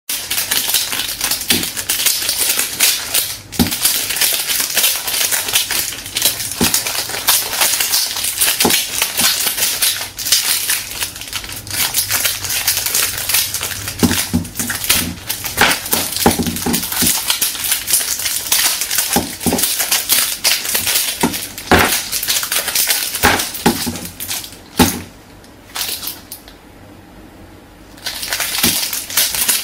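Crushed aluminium drink can stuck on a bare foot, crunching and scraping on wooden floorboards as the foot steps: a steady crackle broken by sharp knocks. It drops away for a couple of seconds near the end.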